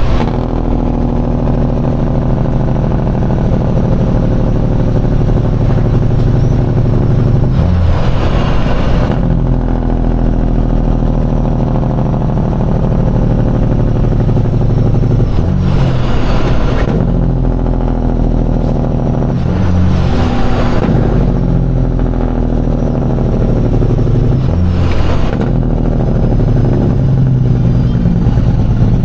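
Semi truck's diesel engine running under load, heard from the cab. Its note breaks and changes pitch about four times as it works up through the gears.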